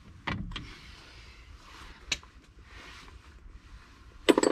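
Short metallic clicks and knocks from hand tools at the wheel hub. A few separate clicks come first, then a louder, brief clatter near the end.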